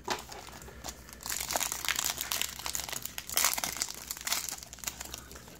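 Foil wrapper of a trading card pack crinkling as it is handled and opened, in a run of dense crackles.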